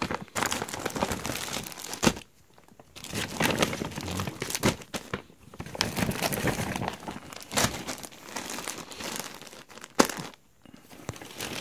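Thin plastic shopping bag and plastic-wrapped clothing packs crinkling as the packs are pulled out and set down, in uneven bursts with a couple of short pauses and a few sharp crackles.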